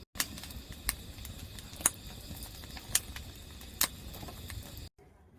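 Camping firewood burning and crackling, with several sharp pops about one a second over a steady soft hiss.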